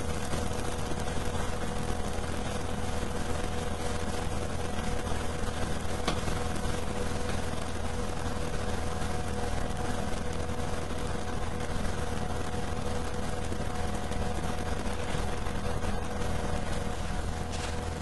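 A steady mechanical hum: a constant low drone under an even hiss, with two faint steady tones, unchanging throughout.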